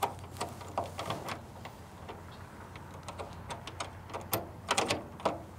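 Small padlock clicking and rattling against the outboard motor's metal clamp-screw handles as it is looped through them, with a louder cluster of clicks near the end as the lock is snapped shut.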